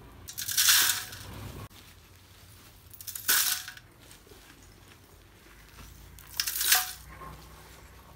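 Pieces of roasted multani mitti (fuller's earth clay) dropped into a steel mesh sieve, clattering on the metal three times, each lasting about half a second.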